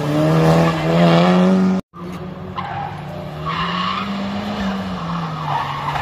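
Race car engines run hard at high revs, with tires squealing. The sound cuts off abruptly for a moment about two seconds in. Then an engine note rises and falls.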